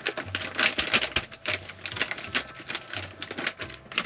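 Dried cranberries being sprinkled onto a salad: a quick, irregular run of small clicks and patters as the pieces drop and the packet is handled.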